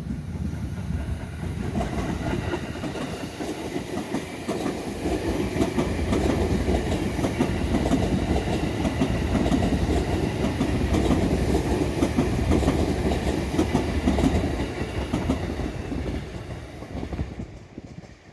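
Electric multiple-unit train passing through a station at speed, wheels clattering rhythmically over rail joints. It builds quickly, runs loud for most of the time, then fades away near the end as the train passes.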